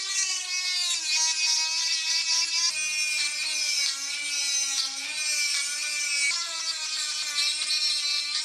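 Electric rotary tool grinding the inside of a steel hammer head's eye with a cylindrical abrasive bit: a high whine whose pitch sags and recovers as the bit is pressed into the metal, with a couple of sudden jumps in pitch.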